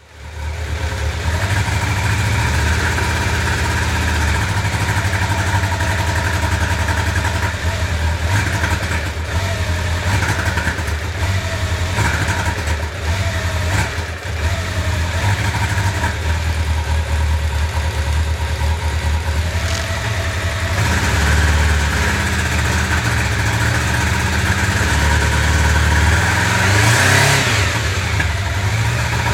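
1995 Honda CB750 Nighthawk's air-cooled inline-four running unevenly, with a brief rise in engine speed near the end. It is misfiring on one cylinder and running on three, because the number 4 carburetor jet is clogged.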